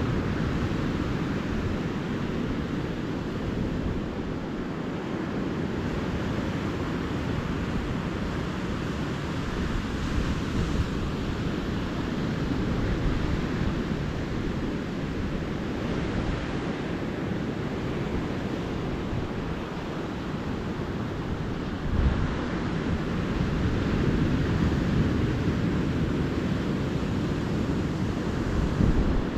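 Calm ocean surf washing steadily onto the beach, swelling and easing, with a couple of short low wind thumps on the microphone near the end.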